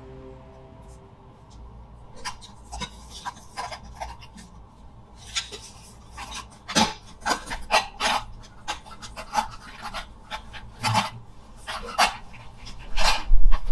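Handling noise of a nested set of metal camping pots being lifted and worked into a black fabric mesh pouch. It comes as a run of short rustles, scrapes and light metal clinks, getting busier from about five seconds in, with the loudest clatter near the end.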